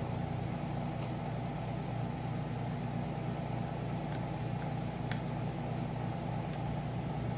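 Air conditioner running with a steady hum, with a few faint clicks over it.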